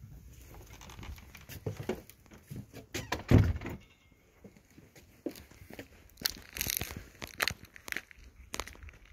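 A loud thump about three seconds in, then footsteps crunching over icy, crusted snow.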